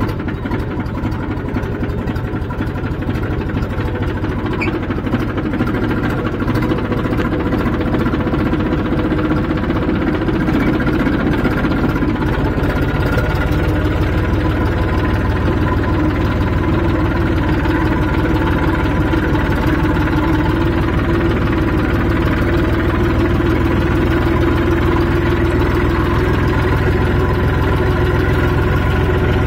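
Tractor engine running steadily under way, its low drone growing slightly fuller after about ten seconds.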